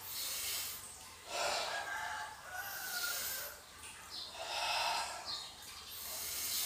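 A man breathing deeply in and out, about five long, hissing breaths roughly a second each, as he recovers after a set of push-ups.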